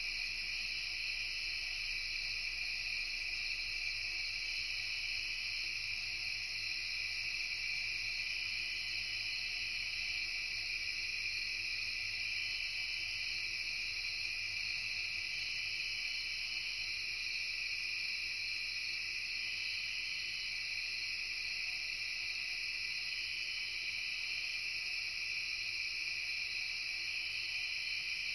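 Steady late-summer chorus of crickets and other night insects, several overlapping high-pitched trills running on without a break.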